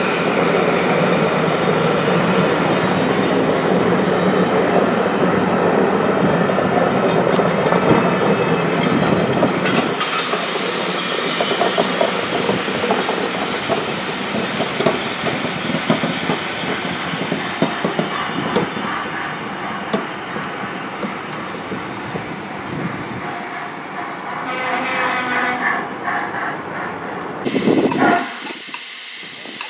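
Railway passenger coaches rolling past on the track, the wheels clattering over rail joints with some squeal; the noise eases off over the second half. Near the end it cuts to a different, quieter scene.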